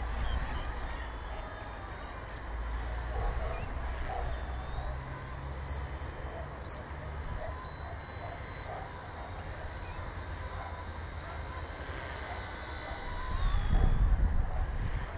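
Seven short electronic beeps about a second apart, then one longer beep lasting about a second: typical of a radio-control transmitter's flight timer counting down and running out. A steady wind rumble on the microphone grows louder near the end.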